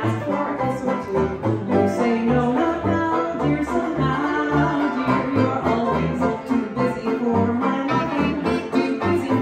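Small 1920s-style hot jazz band playing: sousaphone bass notes about twice a second under banjo, saxophones and trumpet.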